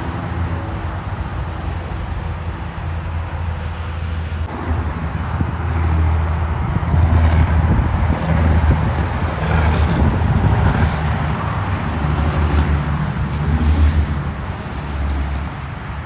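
Interstate traffic passing, with tractor-trailers' tyre and engine noise swelling from about six seconds in and easing near the end. Strong wind buffets the microphone throughout as a gusty low rumble.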